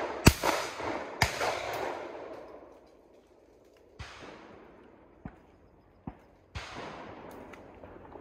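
Shotgun firing at clay targets: two sharp shots about a second apart near the start, each followed by a long echo rolling off across the valley. Fainter bangs and a few light clicks follow later.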